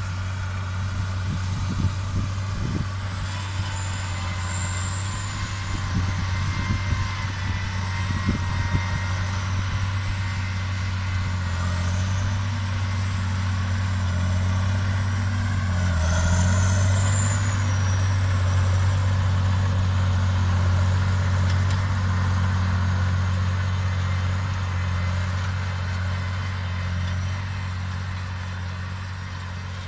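Heavy diesel engine running steadily under load, a constant low drone, with some knocks and rattles in the first few seconds and a swell in loudness about sixteen seconds in.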